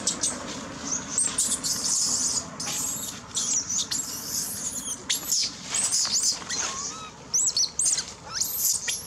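Baby macaque crying in a tantrum: repeated shrill squeals and screeches in quick bouts, some sliding up and down in pitch, as it begs its mother for milk.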